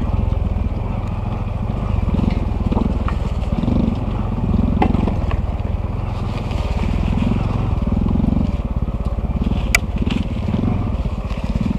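Honda CT125's single-cylinder engine running steadily as the bike rides a dirt trail, with a few sharp knocks near the middle and near the end.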